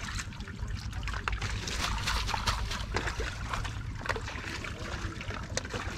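Water splashing and dripping as a cast net is swished in a pond and hauled up out of the water, with many small crackling drips and splashes, busiest a couple of seconds in.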